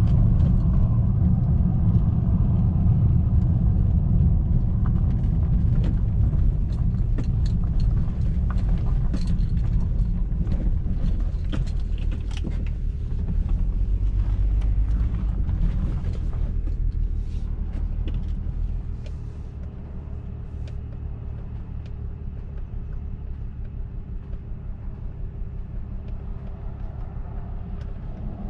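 BMW 335i's N54 twin-turbo inline-six running with road rumble while driving, misfiring after the service engine light has come on. About two-thirds of the way through, the rumble drops away to a quieter, evenly pulsing engine note as the car slows, with scattered clicks before that.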